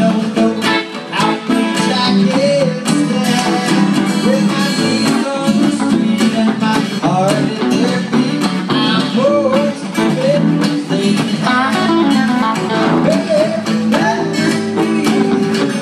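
Guitar music: strummed chords with a melody line of short bending notes over them.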